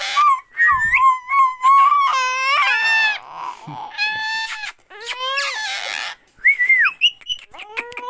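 Rose-ringed (Indian ringneck) parakeet calling: a run of whistled calls that slide up and down in pitch, broken by short harsh squawks and brief pauses.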